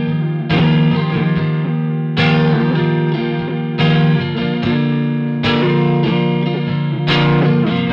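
Electric guitar chords played through a Fairfield Circuitry Shallow Water vibrato pedal, a new chord struck about every second and a half and left ringing with a wavering pitch. The pedal's mix knob blends the wet and dry signal, giving a chorus sound.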